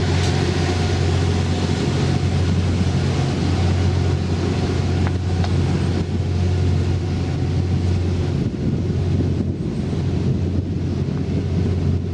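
Diesel engine idling steadily at a low, even pitch, consistent with the generator engines of the JR West 87 series Twilight Express Mizukaze hybrid train running while it stands at the platform.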